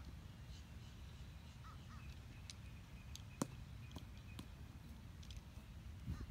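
A golf club striking the ball once, a single sharp click about three and a half seconds in. Faint bird calls sound in the background.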